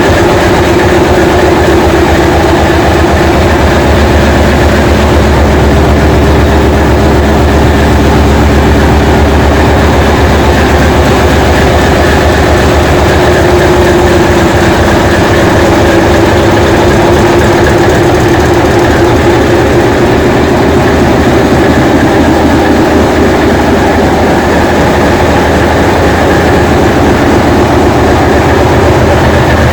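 English Electric diesel locomotive engine running steadily and loudly, a deep drone with a strong low hum and a higher overtone throughout.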